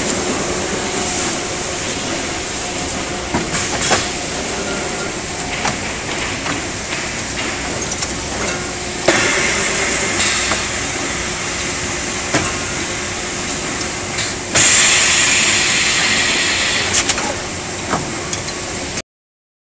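Automatic car radiator assembly machine running on a factory floor: a steady mechanical hum and hiss with scattered clicks and knocks. A louder hiss starts suddenly about 15 s in and lasts a couple of seconds, and the sound cuts off abruptly near the end.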